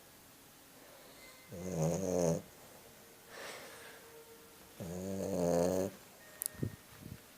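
Pekingese dog snoring: two long, pitched snores about three seconds apart, with a fainter breath between them. A few light clicks near the end.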